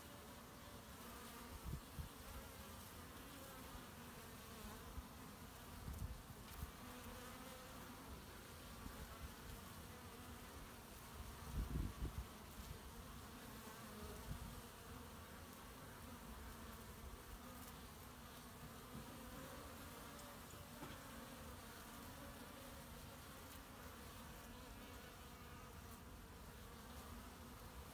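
Honey bees flying in and out of a hive entrance, a faint, steady buzz of many wings. A few brief low thumps break in, the loudest about twelve seconds in.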